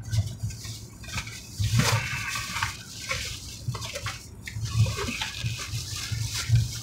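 Drinking from a glass bottle: a series of gulps and swallows with the liquid sloshing in the bottle.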